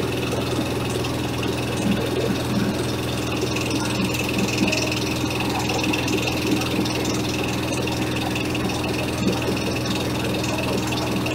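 Kubota diesel engine running steadily, driving a corn husker-sheller, with irregular rattles from the machine.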